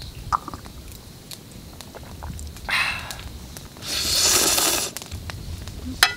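A person slurping ramyeon noodles twice, a short slurp and then a longer, louder one, with small clicks between.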